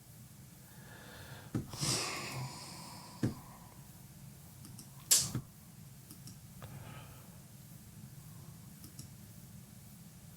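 A quiet room with a low steady hum, a few soft clicks, and a couple of short breathy puffs: one about two seconds in and a louder, sharper one about five seconds in.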